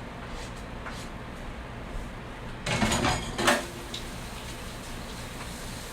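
Kitchen dishes and utensils clattering, a rattle of about a second midway that ends in a sharp clank, with a few faint knocks before it.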